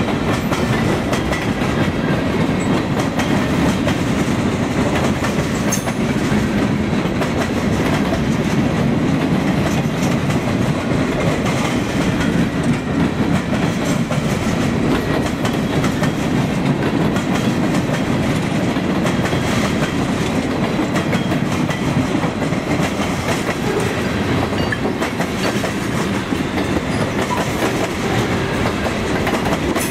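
Freight train's boxcars and tank cars rolling past at close range: a steady rumble of steel wheels on the rails, with a continual clatter of clicks from the wheels.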